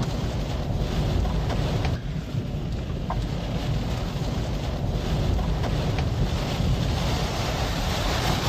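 Tornado wind rushing and buffeting the microphone in a steady, heavy noise.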